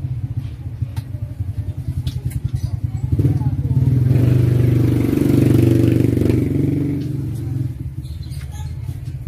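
TVS King 200cc three-wheeler's single-cylinder engine running with a fast, even putter, revved up about three seconds in, held for a few seconds, then dropped back to idle.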